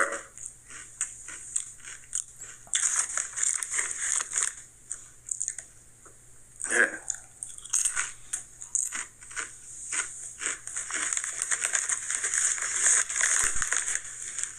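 Someone chewing Sun Chips Original multigrain chips: a run of crisp, irregular crunches in clusters, with a brief voice sound about seven seconds in.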